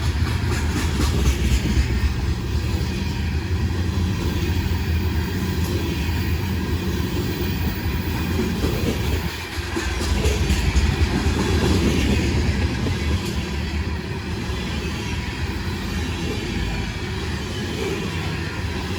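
Freight train rolling past, its cars making a steady heavy rumble on the rails, with quick clicks of wheels over rail joints near the start and again about halfway through.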